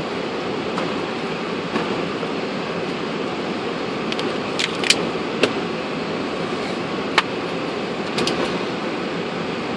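Steady flight-deck noise of a Boeing 747-400 on the ground after landing, an even rush of air and machinery, with a few sharp clicks about halfway through.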